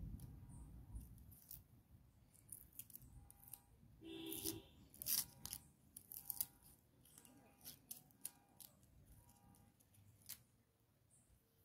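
A small knife cutting and peeling the papery skin off an onion: a string of faint, crisp snips and clicks. A brief pitched sound about four seconds in.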